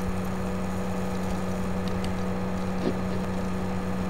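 Steady low electrical or fan-like hum over a constant hiss, with a couple of faint clicks about two and three seconds in.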